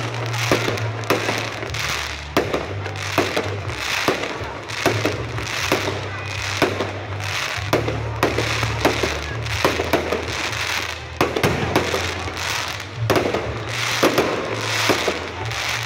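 Aerial fireworks shells bursting in quick succession, one or two sharp bangs a second.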